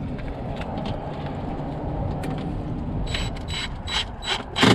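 Cordless power driver driving a screw that holds a plastic mud flap to a car body. It runs steadily at first, then gives about five short, loud bursts in quick succession near the end as the screw is snugged down tight.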